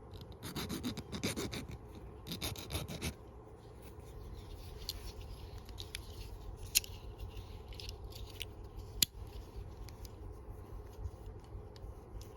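Scraping and rubbing of small parts as a thumb bar is worked onto a Leatherman Wave blade: two short raspy scraping spells in the first three seconds, then light handling ticks with two sharper clicks.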